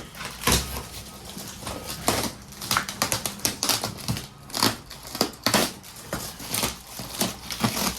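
Boxes and belongings being handled: an irregular run of knocks, clicks and crinkling as things are moved and opened.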